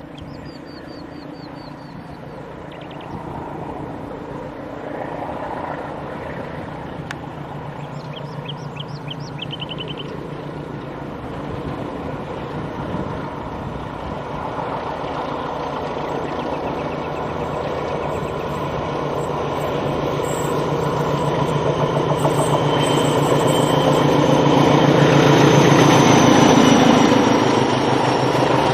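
Medway 1435, a 1400-class diesel locomotive, approaching with its engine running hard in a steady rumble. It grows louder all the way, peaks near the end and then eases slightly as it passes.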